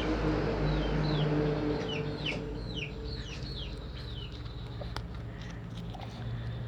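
Birds chirping: a run of short, quickly falling chirps, thickest in the first three seconds and sparse after that, over a low steady hum that fades about halfway through.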